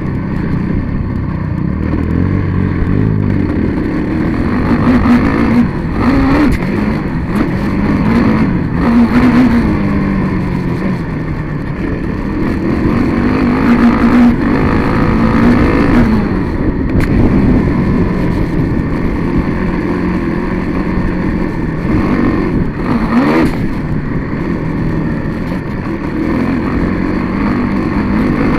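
Off-road racing engine heard onboard, running hard and rising and falling in pitch over and over as the throttle opens and closes and it shifts gears, with rough wind and track noise over it.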